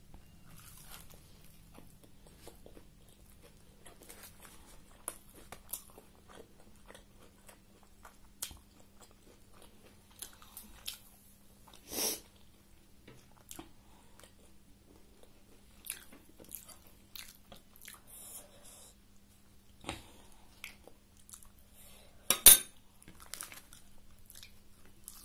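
Close-up chewing and biting of a crisp homemade egg roll whose oats-and-atta wrap was fried a little hard, with many small crunchy clicks. Louder sharp knocks or crinkles come about halfway through and, loudest, near the end. A faint steady hum runs underneath.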